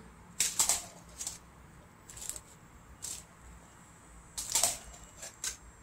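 Metal ladle and strainer spoon scraping and knocking against a steel pot as rice noodles and lettuce are tossed. There are about seven short scrapes at uneven intervals, the loudest just after the start and about four and a half seconds in.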